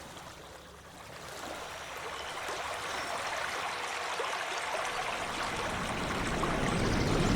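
Water running in a stream, a steady rushing trickle that fades in and grows louder.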